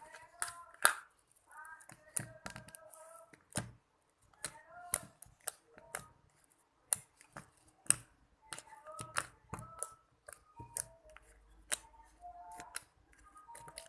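Irregular sharp clicks and taps, sometimes several a second, between short stretches of a high-pitched voice.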